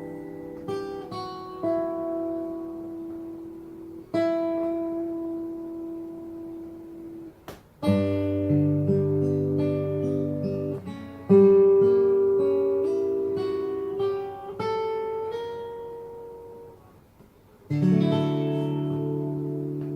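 Yamaha L-12SN all-solid acoustic guitar played fingerstyle: plucked chords and single-note melody, each left to ring and fade. There is a sharp percussive tap about seven and a half seconds in. After a short pause, a final chord is left ringing near the end.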